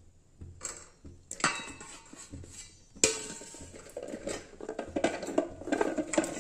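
Whole amla (Indian gooseberries) dropped by hand into a steel pot of water, several knocks and plops, the loudest about three seconds in, with busier handling and clatter in the last few seconds.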